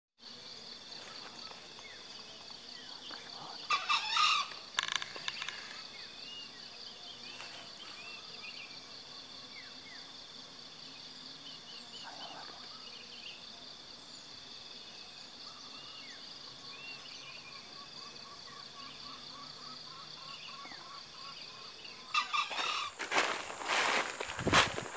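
Green junglefowl crowing from the treetops, the loudest calls about four seconds in, over a steady high-pitched drone and scattered small bird chirps. Near the end, rustling footsteps through forest undergrowth.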